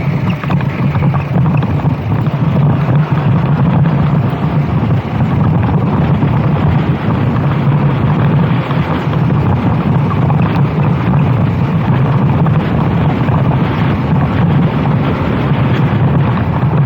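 Racing kart engine running at speed with a steady low drone, under heavy wind rush on the microphone.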